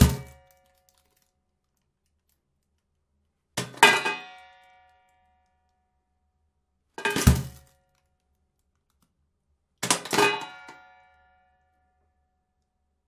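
Metal trash bin being banged, lid or body: three separate clangs about three seconds apart, each a quick double hit followed by a short metallic ringing.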